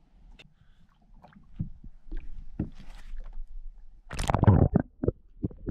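Scattered knocks and handling noise in a small boat, with one loud rough rustle lasting under a second about four seconds in.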